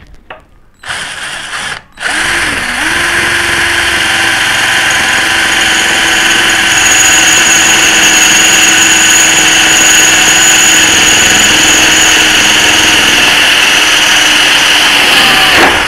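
Xenon CDD 505 cordless drill boring a 5 mm bit through an iron plate about 1 mm thick. A short burst comes about a second in, then a steady run of the motor with a high whine as the bit cuts the metal, stopping suddenly near the end.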